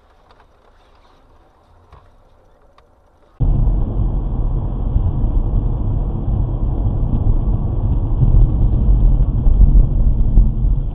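Faint hum with a few light clicks, then, about three and a half seconds in, the loud steady rumble of a car driving, road and engine noise heard from inside the cabin through a dashcam microphone.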